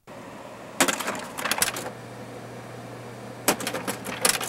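Kodak Carousel slide projector running with a steady fan hum, and two clusters of rapid mechanical clicks, about a second in and again near the end, as it changes slides.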